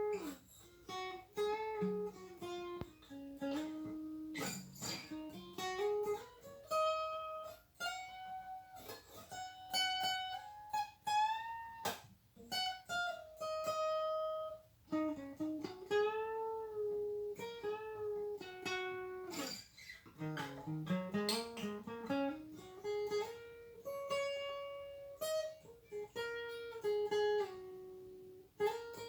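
Guitar playing a single-note lead line through a pentatonic scale, with sustained notes and frequent bends and slides in pitch.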